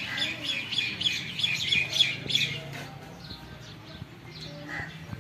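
Small birds chirping: a fast, busy flurry of short high chirps for the first two and a half seconds, then scattered single chirps.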